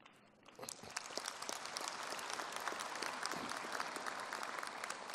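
Audience applauding: a dense patter of many hands clapping that builds up about half a second in, holds steady, and begins to thin out near the end.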